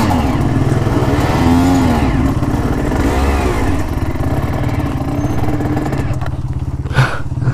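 Two-stroke single of a 2003 Aprilia RS 125 with a full Giannelli exhaust, running under load up a steep climb and failing to pull it, with wind rush on a helmet-mounted microphone. A single sharp click near the end.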